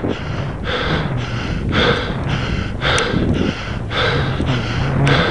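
A cyclist's heavy, ragged breathing while straining up a steep climb: hard gasps in and out, about one a second, the sign of near-exhaustion.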